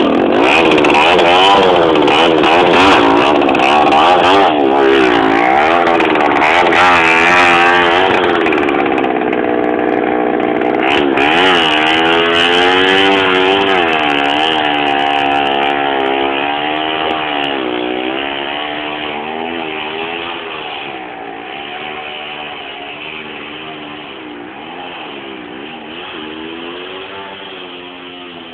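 Jawa 20 single-cylinder two-stroke motorcycle engine revving up and down repeatedly under load on rough ground. It fades steadily in the second half as the bike pulls away.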